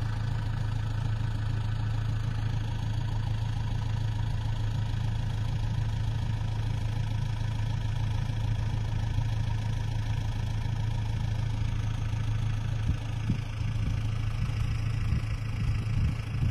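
Farm tractor's diesel engine running steadily at idle, a strong even low hum, turning a little rougher and more uneven near the end.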